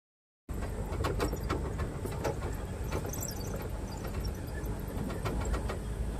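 Outdoor ambience cutting in suddenly about half a second in: wind rumbling on the microphone, with scattered crackles and a faint high steady tone.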